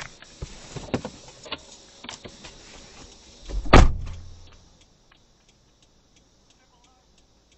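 Clicks and knocks inside a stopped car, then a car door slamming shut about four seconds in. Afterwards it is quiet apart from faint ticking, about three ticks a second.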